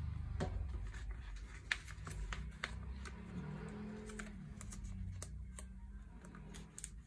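Clear plastic card sleeves and binder pocket pages clicking and rustling as a sleeved photocard is handled and slid into a pocket: irregular sharp ticks, over soft background music.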